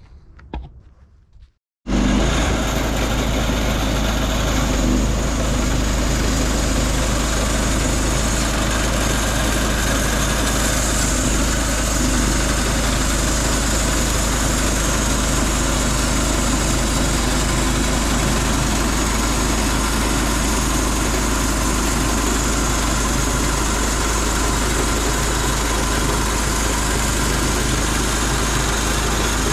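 An engine starts up abruptly about two seconds in and runs steadily at an even level with a strong low rumble, most likely the portable sawmill's engine.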